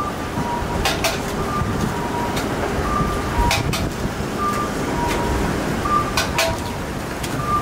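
Raw eggs being cracked open one after another: sharp shell taps every second or two, several in quick pairs, over a steady background rumble.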